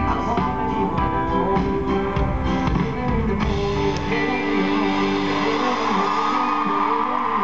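Live band playing the close of a pop-rock song, with strummed acoustic guitar over drums and bass. About halfway through the drumming stops and the band holds a final sustained chord while the audience starts to cheer.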